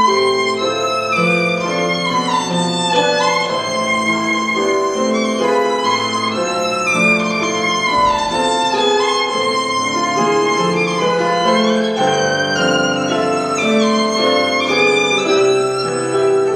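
Violin played with piano accompaniment, the violin carrying a melody of held notes joined by short slides.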